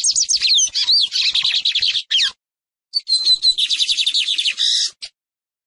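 Lined seedeater (Sporophila lineola) singing: two fast phrases of high, rapidly repeated notes. The second phrase starts after a short pause and cuts off about five seconds in.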